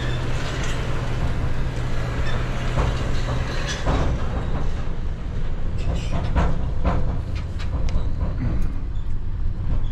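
Pickup truck driving slowly over a rutted dirt yard, heard from inside the cab: steady engine and road noise with a low hum that fades about four seconds in, then scattered rattles and knocks as the truck bumps along.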